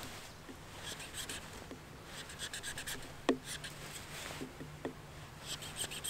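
Fixed-blade knife shaving a green wood branch in short, quick scraping strokes that come in bursts about every second, carving a 45-degree bevel into its end. There is a sharp tap about three seconds in.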